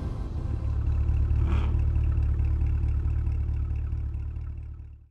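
Outro sound effect of a car engine running with a steady low drone, a brief whoosh about a second and a half in, fading out at the end.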